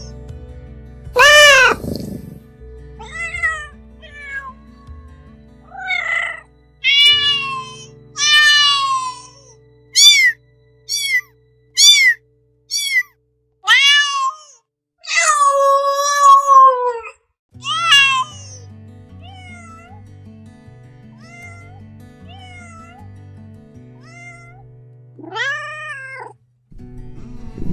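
Kitten meowing over and over, a string of short high calls with one long drawn-out meow about halfway through and fainter calls after it, over background music.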